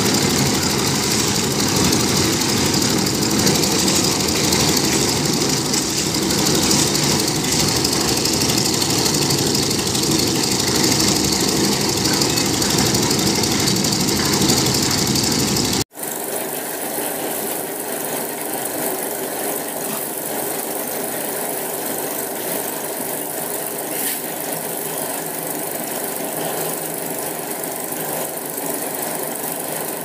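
Portable concrete mixer's engine running steadily under load, with the drum turning. It cuts out for an instant about halfway through, then carries on a little quieter.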